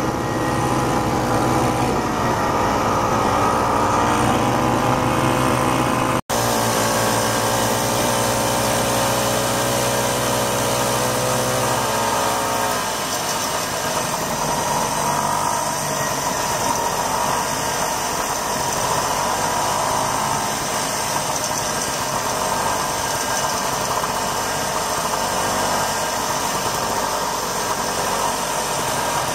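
1967 Ski-Doo Olympique's 250 cc single-cylinder two-stroke engine running as the sled travels along the trail. Its pitch rises and falls over the first few seconds, and it cuts out for a split second about six seconds in. After about twelve seconds the engine note becomes less distinct under a rougher, more even running noise.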